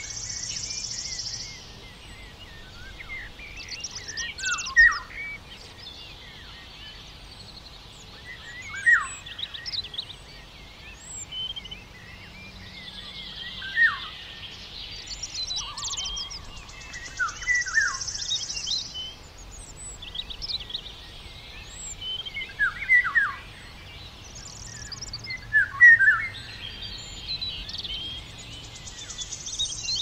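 Small birds chirping and calling: short, sharp notes that slide down in pitch, coming in scattered clusters every few seconds.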